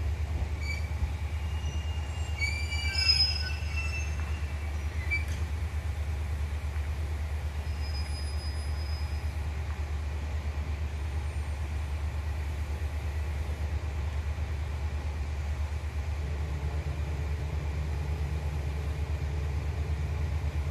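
Diesel railcar with a steady low engine rumble, and a cluster of brief high-pitched squeals about three seconds in.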